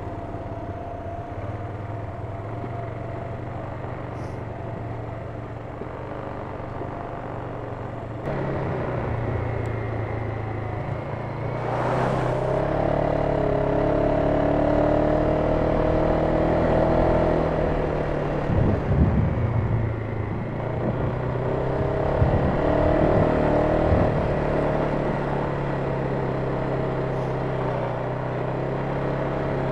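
Polaris Sportsman 570 ATV's single-cylinder engine running under way on a trail, picking up throttle about eight seconds in and again around twelve seconds. A brief rush of noise comes near twelve seconds, and a few low knocks as the machine goes over bumps come later on.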